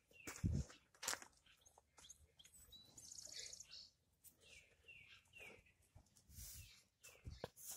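Faint chirping of small birds, short high notes sliding downward, repeated at irregular intervals, with scattered soft crunches and rustles in straw.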